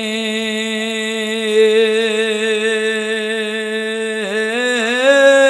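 A man's voice holding one long chanted note over a microphone, steady for about four seconds, then wavering and bending in pitch near the end: the drawn-out melodic intoning of a Bangla waz sermon.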